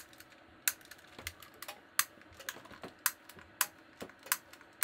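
Sharp, irregular clicks, roughly two a second, of small hard tools or parts being handled while the loose wire on a bilge pump is being reconnected.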